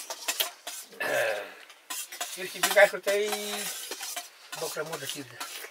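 A steel spoon clinks and scrapes in a steel bowl as someone eats rice and buff soup. There is a slurp about a second in, and short hummed voice sounds come between mouthfuls.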